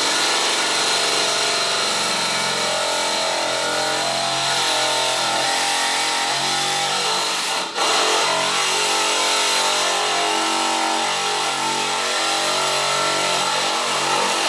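Compact cordless one-handed reciprocating saw (DeWalt) running steadily as it cuts through screw-studded 2x4 lumber. It stops for an instant about eight seconds in, then starts again and keeps cutting.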